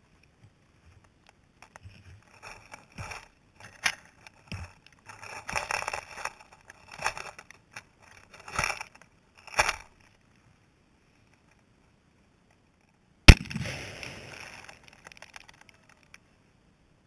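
Dry grass stems crackling and rustling as hands handle them close to the microphone. About thirteen seconds in comes one sharp, very loud blast with a rumbling tail: an exploding target set off by a shot.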